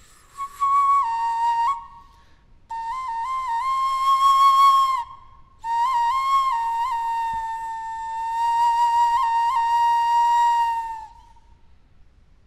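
Maya wind instrument played in three phrases, mostly holding one high note with quick little flicks up in pitch. It stops near the end.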